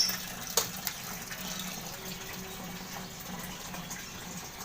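Water running steadily out of a semi-automatic washing machine's drain, with two sharp clicks in the first second.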